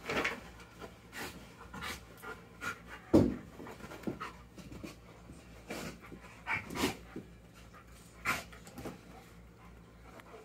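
A puppy panting in uneven breathy gusts, with one louder gust about three seconds in.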